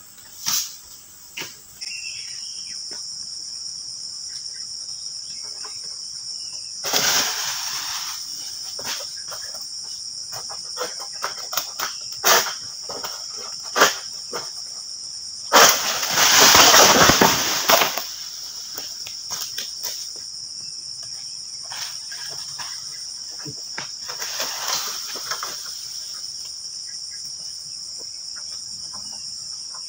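A steady high-pitched insect drone sets in about two seconds in, while a long-pole harvesting sickle (egrek) works in an oil palm crown: scattered sharp snaps and knocks, and about halfway through a loud crash lasting two or three seconds, typical of a cut frond or fruit bunch falling through the leaves.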